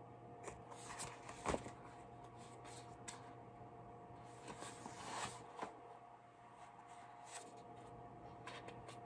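Faint rustling and soft clicks of paperback book pages being handled and turned, with one sharper click about a second and a half in, over a faint steady hum.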